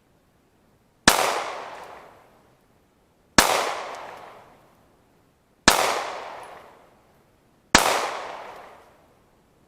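Four single 9mm handgun shots about two seconds apart, each report echoing away over about a second.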